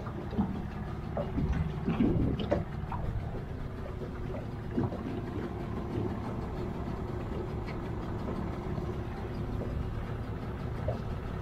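Outboard motor idling steadily, with a few short knocks and scrapes in the first five seconds as a flathead catfish is unhooked on an aluminium boat floor.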